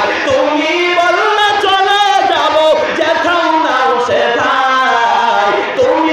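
A man's voice chanting in a sung, melodic style into a microphone, with long gliding notes that waver as they are held.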